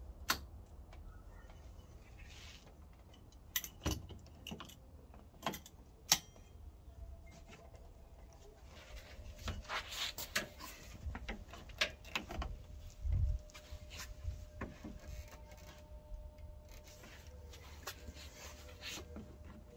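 Scattered clicks, clinks and knocks of hands working on a car's front lip spoiler and handling loose metal nuts and bolts on concrete, with a busier stretch of rattling clinks and a dull thud in the middle.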